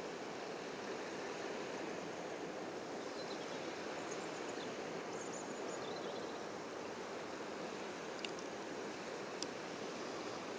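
Steady, even rush of riverside background noise, with faint high chirps about four to six seconds in and two short clicks near the end.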